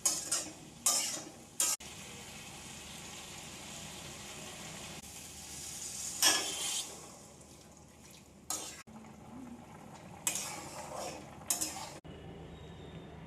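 A metal spoon stirring food in a cooking pan, with several sharp scrapes and clinks against the pan over a steady sizzle of frying.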